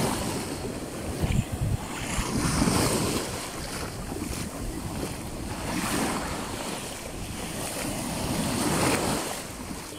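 Small sea waves breaking and washing up the sand at the water's edge, swelling and ebbing about every three seconds, with wind buffeting the microphone.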